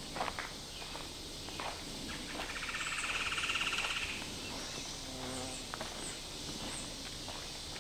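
Footsteps on a dirt trail. A fast-pulsed buzzing trill swells and fades about two and a half to four seconds in.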